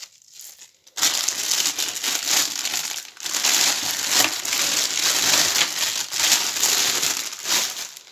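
Plastic packaging crinkling and rustling loudly as it is handled, starting about a second in and running almost without a break, with a short lull near three seconds.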